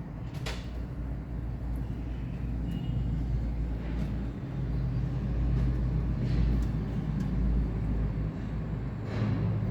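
A car engine running with a steady low rumble that grows louder through the middle, with a sharp metallic click about half a second in and a few light ticks.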